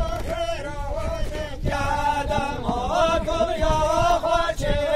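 Folk dance music for a govend line dance: a high, ornamented melody held on long, wavering notes over low thuds, heard as a chant-like vocal line.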